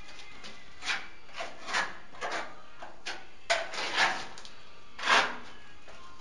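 Short scraping and rubbing sounds from tiling work, about six in a row at uneven spacing, the loudest in the second half.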